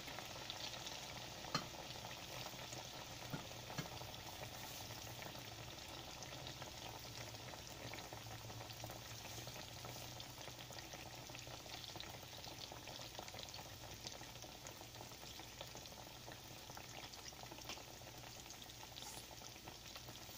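Sliced plantains frying in hot oil in a pan: a steady sizzle of fine crackles, with a couple of light knocks in the first few seconds.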